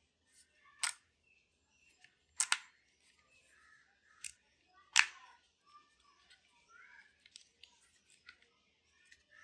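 Several sharp clicks with soft rustling and small ticks in between, as Baseus Bowie D05 headphones and their packaging are handled. There is a quick double click about two and a half seconds in, and the loudest click comes about halfway.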